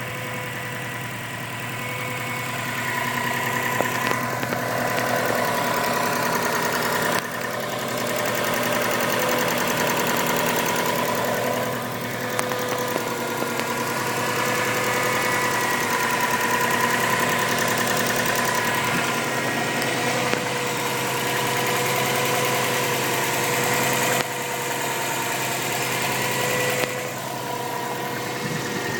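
2002 Subaru Impreza WRX's turbocharged flat-four engine idling with a ticking from under the hood, noticeable on both sides of the engine, which the owner takes to be internal. The loudness steps up and down a few times.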